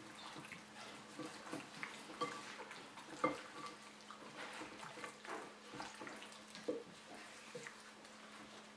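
Gloved hands squelching and squishing raw chicken legs in a sticky soy-and-spice marinade in a glass bowl, in short irregular wet strokes, with one sharper knock about three seconds in. A faint steady hum sits underneath.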